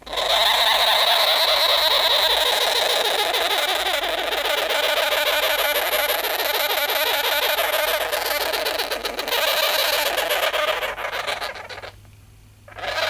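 Sugar glider crabbing inside its fleece pouch: a loud, continuous crackling buzz, the defensive noise of an upset sugar glider that doesn't want to be handled. It breaks off about twelve seconds in and starts again just at the end.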